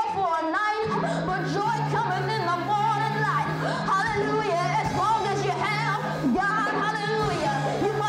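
Gospel worship singing: voices sing wavering, held notes over a steady low held chord that comes in about a second in.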